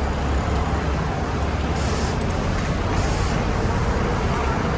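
Steady low rumble of a city bus, with two short bursts of high air hiss about two and three seconds in.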